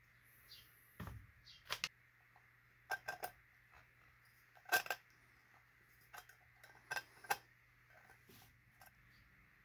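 Metal snips cutting the rim of a hand-raised thin copper cup: a run of short, sharp metallic snips at irregular intervals, loudest about halfway through, as the ragged edge is trimmed off. A faint steady hum runs underneath.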